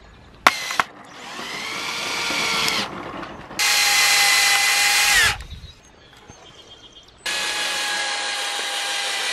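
Cordless drill driving screws into wooden boards: a couple of sharp clicks, then three runs of the motor whine, the first speeding up with a rising pitch, the second loudest, the third steady.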